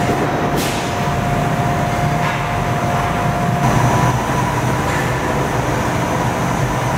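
Thread-rolling machine running steadily as its two dies roll a thread onto a long steel bolt shank: a continuous mechanical running noise with a faint steady tone that shifts higher about three and a half seconds in.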